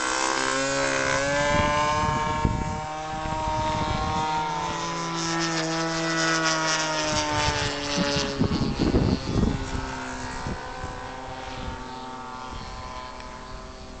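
Model aircraft's Super Tigre 25cc glow engine running at speed in flight, its note sinking slowly in pitch over the first several seconds and growing fainter toward the end as the plane climbs away. Wind buffets the microphone in gusts about eight to nine seconds in.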